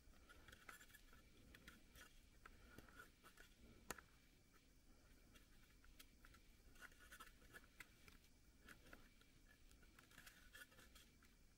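Near silence with faint scratching and light clicks from fingers working at a freshly drilled and deburred hole in a metal air cleaner base. One sharper click comes about four seconds in.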